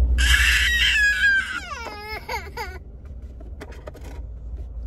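A young child crying out in a long, high-pitched wail that slides down in pitch and breaks off after about three seconds. It is a fussy cry that his mother puts down to thirst. A car's steady engine hum runs underneath.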